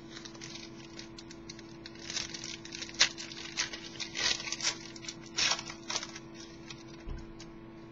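Trading cards being handled between readings: short rustling slides and flicks of card stock, with a sharp click about three seconds in.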